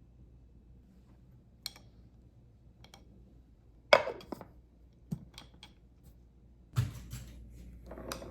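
A few light clicks and knocks from small hard objects, with one sharper, louder knock about four seconds in.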